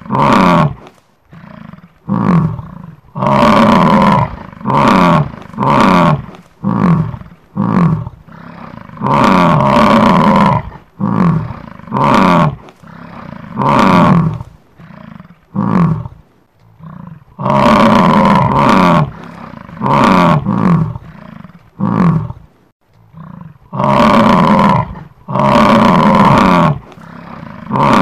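Bison bellowing: a long series of loud, deep roaring calls, each from about half a second to two seconds long, many falling in pitch, with short gaps between them.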